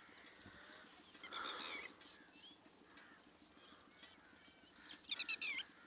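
Birds calling faintly, scattered short chirps, with a quick run of five or six high calls near the end.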